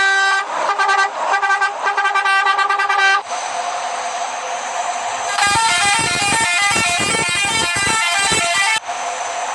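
Vehicle horn sounding: a few short toots, then a held tone, then a quick run of changing notes, and a held tone again near the end.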